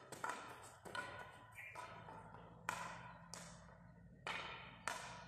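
Field hockey stick tapping a hard hockey ball in short, sharp taps at uneven spacing as the ball is dribbled from side to side.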